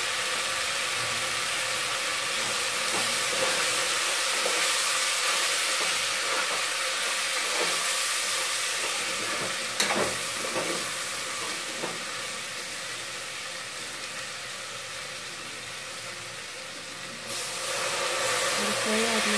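Vegetables and spice powder sizzling as they fry in a pressure cooker, with a steel spoon scraping and clinking against the pot as they are stirred, one sharp clink about ten seconds in. The sizzle falls quieter in the second half and comes back louder near the end.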